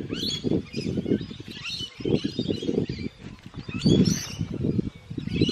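Parrots calling in many short, sweeping chirps, over a low uneven rumble of wind on the microphone.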